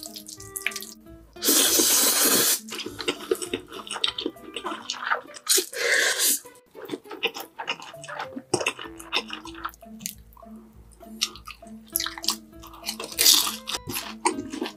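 A person slurping instant noodles in three loud, wet pulls, about a second and a half in, about six seconds in and near the end. Smacking chewing clicks come between the pulls, over background music.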